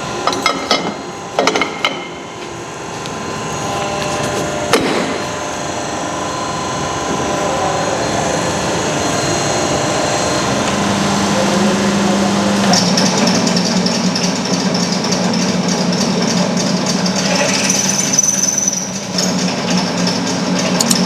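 Multi-spindle drilling machine at work: a few sharp knocks and clicks in the first seconds as the part is handled, then the machine runs with a steady hum. From a little past halfway, a steady high whine joins the hum as the drills cut two holes in the part.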